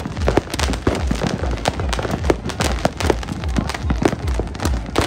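Fireworks going off in a dense, irregular barrage: sharp cracks and bangs several times a second over deep, booming thumps.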